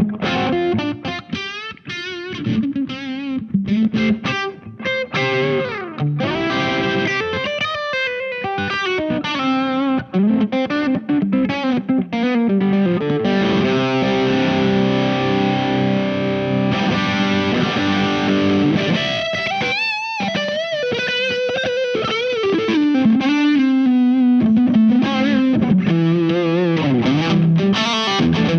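Electric guitar with humbuckers, a 1979 Yamaha SG500, played through the distortion (Hyde) side of a silver Visual Sound Jekyll & Hyde V1 pedal, on its blunt setting with the controls around noon. Choppy distorted riffs give way to held chords, with a short break about twenty seconds in before more riffing.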